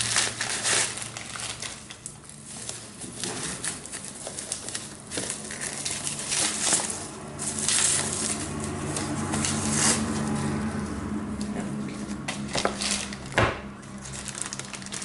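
Packaging being handled and unwrapped by hand: irregular rustling and crinkling with scattered clicks and taps, and one sharper knock near the end. A low steady hum runs underneath.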